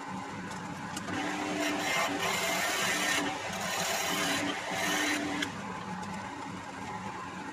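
Wood lathe motor humming steadily while a skew chisel cuts a spinning wooden pen blank; the shaving hiss swells twice in the middle as the tool bites.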